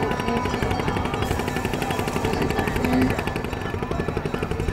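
Small boat's engine running with a rapid, steady chugging.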